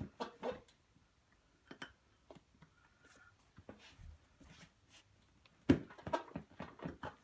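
Scattered light clicks and knocks of handling, with one louder knock about five and a half seconds in followed by a quick run of clicks.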